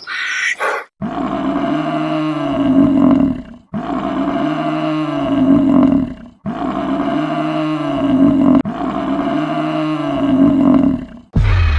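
A large animal's deep roaring call, repeated four times in identical form, each call about two and a half seconds long with a pitch that rises and then falls.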